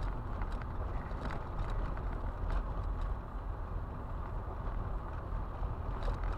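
Car driving on a loose gravel road, heard from inside the cabin: a steady low tyre rumble with irregular sharp clicks of stones thrown up against the car.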